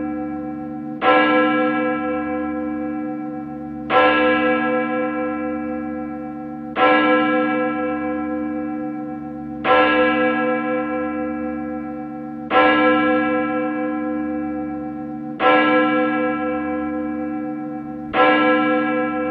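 A single large bell tolling slowly, struck seven times at an even pace of about one stroke every three seconds. Each stroke is the same note and rings on, fading, until the next.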